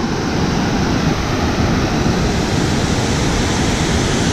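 A waterfall rushing steadily: an even, unbroken noise of falling water.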